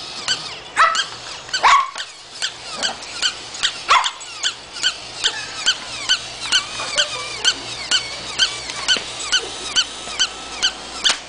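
Battery-operated barking toy dog yapping in a fast, regular loop of short high yips, about three a second. A few louder barks stand out in the first four seconds.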